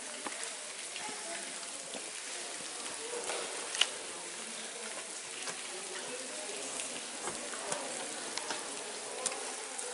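Steady patter and hiss of water dripping and falling inside a wet volcanic cave, with scattered louder single drips, the sharpest about four seconds in.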